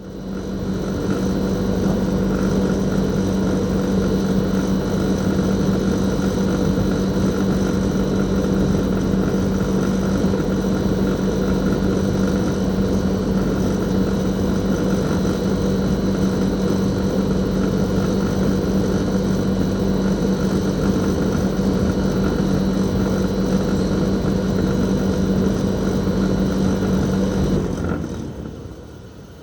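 Toshiba RAS-4069AV inverter air-conditioner outdoor unit running, its twin-rotary compressor giving a steady low hum with fainter higher whining tones over it. Near the end the sound drops away over a second or two to a much quieter level.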